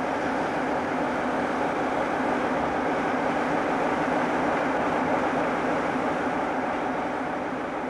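Class 47 diesel locomotive's Sulzer twin-bank 12-cylinder engine running steadily while the locomotive stands at the platform.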